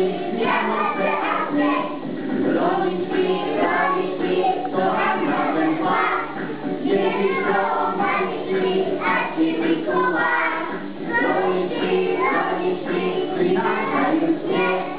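A group of young children singing together to music accompanying them, steadily and without a break.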